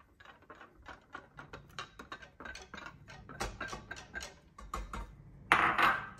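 Wire whisk clicking and scraping against the sides of a stainless-steel saucepan as it stirs dry sugar and cornflour, a quick irregular run of light ticks. A louder clatter comes near the end.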